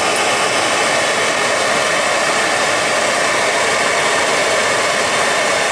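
Sure Fire propane torch burning with a steady hiss, lit suddenly right at the start.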